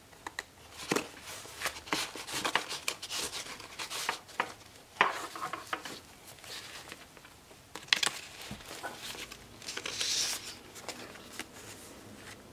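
Paper pages and stiff card tags of a handmade junk journal being handled and flipped by hand: rustling with irregular sharp paper snaps and taps, the sharpest about five seconds in and again near eight seconds, and a longer rustle of sliding paper near the end.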